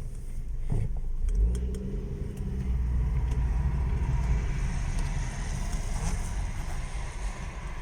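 Honda Civic sedan on the move: a steady low rumble of engine and road, with a few short sharp creaks or clicks from the car's body about a second in.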